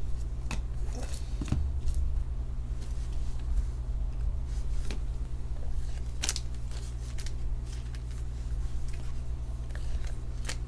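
Trading cards in hard plastic holders being handled and set down on a table: scattered light clicks and scrapes, the sharpest about six seconds in, over a steady low hum.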